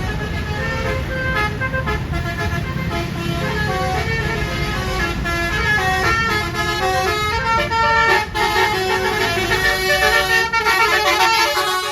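A tour bus's Basuri telolet musical air horn playing a quick melody of short stepped notes, often several tones sounding together, over a low rumble; the tune stops just before the end.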